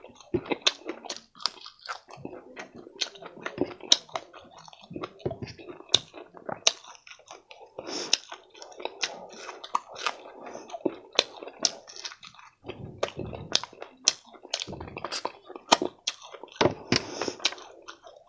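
Close-miked chewing of fried food in an eating-ASMR recording: wet mouth sounds with many sharp, irregular clicks and smacks, and an occasional crunch.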